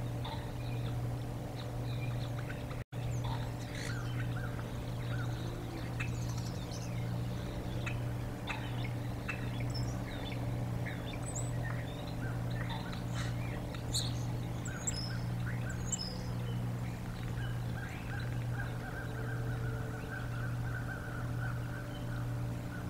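Wild birds chirping and calling here and there over a steady low hum, with a fast run of repeated notes on one pitch in the last third. The sound drops out for an instant about three seconds in.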